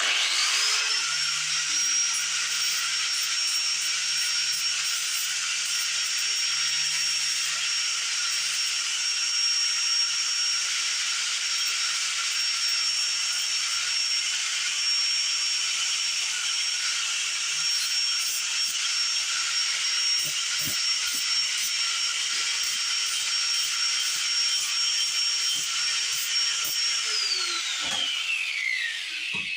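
Grinder with an abrasive cut-off wheel cutting through a metal brake bracket. It spins up at the start, holds a steady high whine over a harsh grinding hiss, then winds down near the end.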